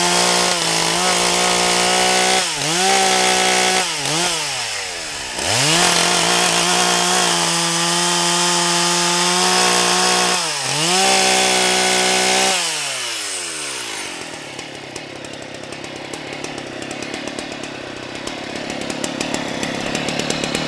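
A Husqvarna 181 two-stroke chainsaw with a 20-inch bar, run at full throttle while bucking pine logs, on a chain the owner says is now blunt. The revs drop and climb back three times. About twelve seconds in, the engine winds down and a steady rushing noise remains.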